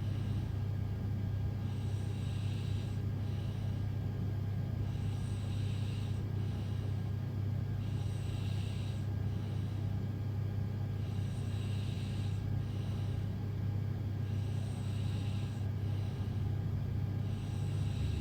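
A sleeping person snoring, breath after breath about every three seconds, over a steady low hum.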